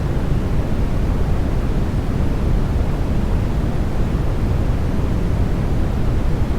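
Steady sleep-aid noise track, an even rushing hiss heavier in the bass than the treble, unchanging throughout.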